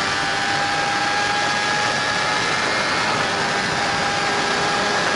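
Steady wind rush and a constant engine hum from a camera on a sports motorcycle cruising at motorway speed.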